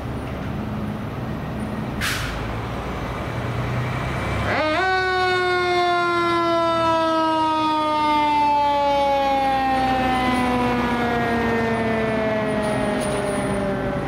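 A fire engine's diesel engine runs, with a short hiss about two seconds in. Then a mechanical siren winds up quickly and slowly falls in pitch as it coasts down.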